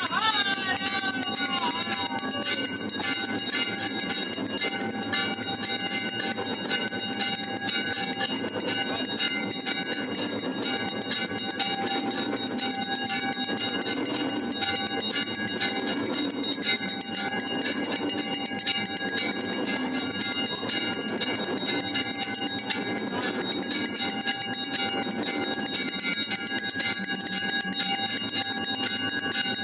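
Many temple bells ringing together without pause during an aarti, a dense clangour of held, overlapping tones.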